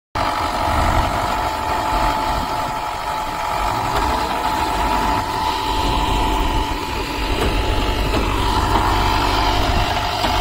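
Finlay mobile block-making machine's engine running steadily: a constant low rumble with a steady whine above it.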